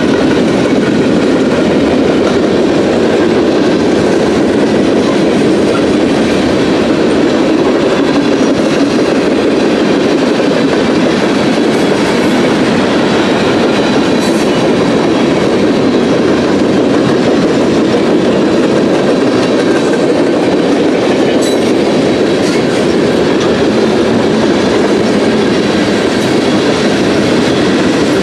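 Freight train cars rolling past close by: a loud, steady noise of steel wheels running on the rails, with no engine or horn, and a few faint brief ticks over it.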